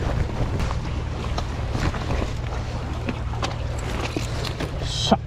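Strong wind buffeting the microphone, a steady low rumble, with small scattered clicks and one sharp click just before the end.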